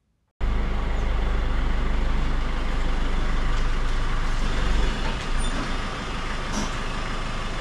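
Mercedes-Benz Sprinter van's diesel engine running as the van is driven slowly forward. It is a steady low rumble that starts abruptly about half a second in and eases a little after about five seconds.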